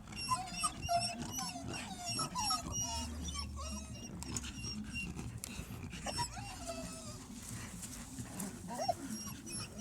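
Dogs whining and whimpering over and over in short, high, wavering cries, frightened by the fireworks, with scattered faint crackles underneath.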